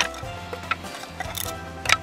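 Background music over a few sharp wooden knocks as thin kindling boards are split with a knife. The strongest knock comes near the end.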